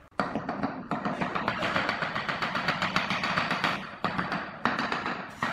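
Gloved hand rubbing over a glazed ceramic floor tile, a rapid scratchy rasp with short breaks about four seconds in.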